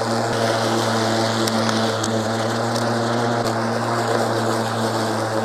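Cordless electric lawn mower running steadily while cutting grass, its motor and spinning blade giving a constant, even-pitched hum.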